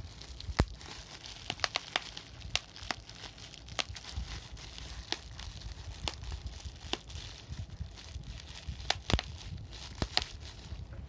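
Bubble wrap being popped: sharp single pops at an irregular pace, a few a second, some much louder than others.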